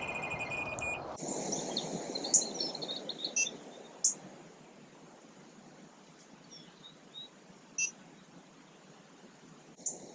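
Outdoor lakeside ambience with small birds chirping in short, scattered high calls. A faint high pulsing tone and background noise fill the first second, and the ambience grows quieter after about four seconds.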